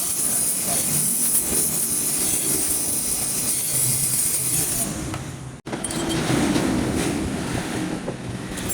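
Gas welding torch flame hissing and rushing steadily while cast aluminium is welded. The sound cuts out abruptly about five and a half seconds in, then resumes as a rougher rushing.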